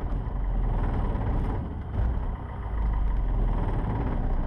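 Cessna 150's Continental O-200 four-cylinder air-cooled engine running steadily at low rpm with the plane standing still, a heavy low rumble heard inside the cabin.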